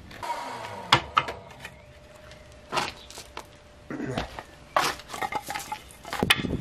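Cut pine stakes knocking and clattering against each other as they are picked up and handled: a series of separate sharp wooden clacks, some with a brief ring.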